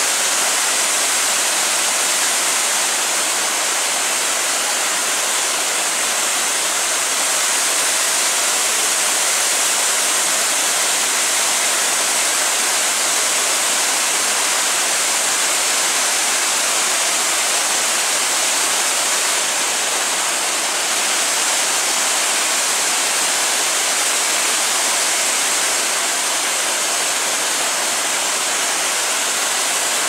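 Waterfall cascading down over large boulders: a loud, steady rush of falling water.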